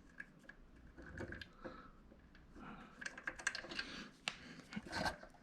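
Light, scattered clicks and small scrapes of screws, bolts and metal stand parts being handled by hand during assembly, as a cross-threaded bolt is worked at.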